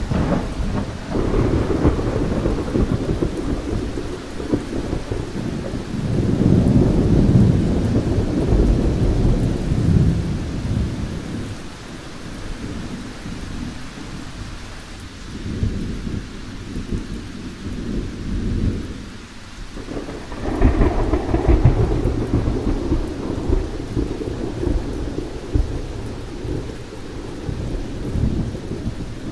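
Rolling thunder over steady rain. Long low rumbles swell and fade one after another, loudest about six to ten seconds in and again just after twenty seconds, with a quieter lull between.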